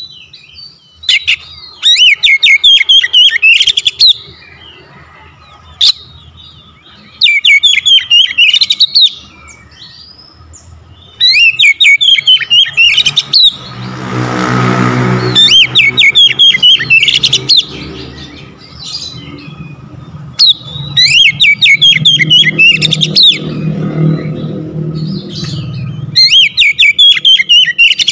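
Oriental magpie-robin singing loud, rich whistled phrases in bursts of two to three seconds, with short pauses between. A motor engine passes by about halfway through, and a low engine hum comes back in the last third.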